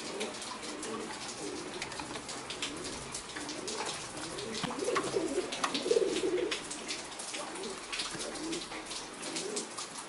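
Domestic pigeons cooing in their cages: several overlapping coos that swell and fall, loudest about five to six seconds in, with scattered light clicks and rustles.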